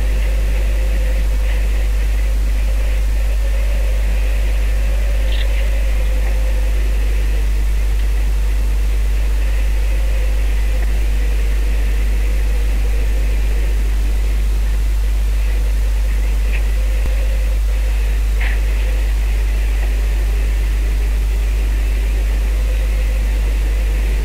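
A boat's engine running steadily, a constant low drone with a hiss of wind and water over it.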